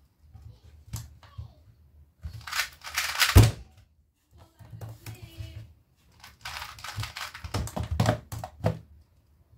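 Hand-handling sounds of a 2x2 speedcube on a desk mat: quick clicks of the cube turning, then a heavy thunk about a third of the way in as it is set down or the timer is hit. Later comes a run of sharp knocks and rustles as a cardboard box is picked up and moved.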